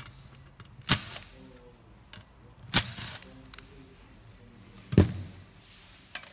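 Sharp clunks and knocks from a metal car-stereo chassis and a cordless drill being handled on a workbench, four in all, the loudest about five seconds in.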